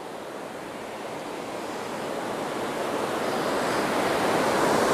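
Ocean surf washing in: a steady rush of noise that swells gradually louder.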